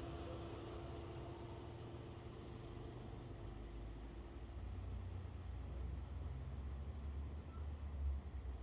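Crickets chirping steadily in a high, pulsing drone, over a low rumble that swells in the second half and peaks near the end.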